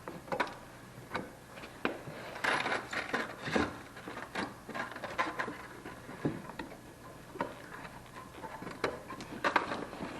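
Irregular light clicks and knocks of hard objects being handled, a few each second, with a denser clatter about two and a half to three and a half seconds in.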